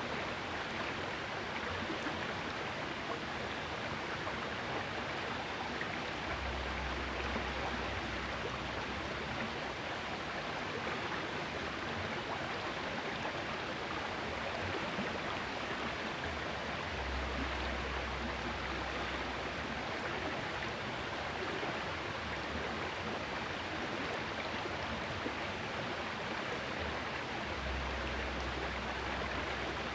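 Small river's water flowing and rushing steadily, with a low rumble coming and going three times.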